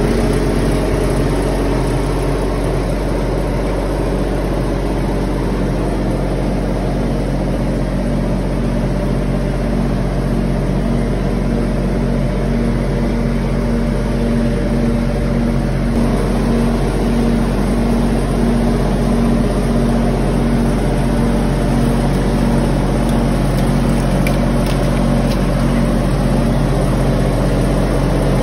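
A steady mechanical drone like an engine idling, with an even pulsing throb in it.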